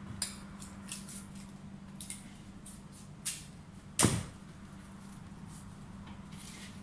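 Palm leaves rustling and clicking as they are handled and bent by hand, in short scattered bursts, with one sharp knock about four seconds in. A steady low hum runs underneath.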